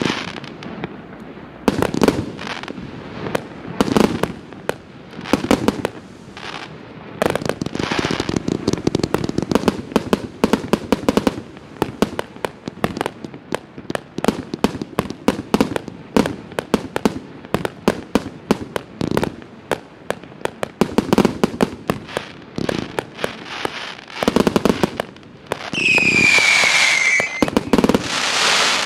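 Multi-shot firework cake of assorted calibres (159 shots) firing: an irregular, rapid string of shots and aerial burst reports. Near the end comes a dense barrage with a whistling tone that falls slightly in pitch.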